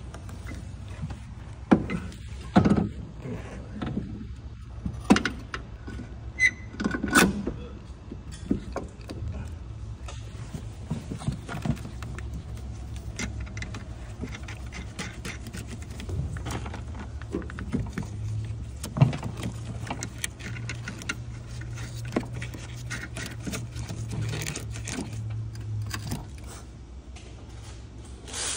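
Scattered clinks and knocks of hand tools and parts on metal during front-strut work on a car, over a steady low hum.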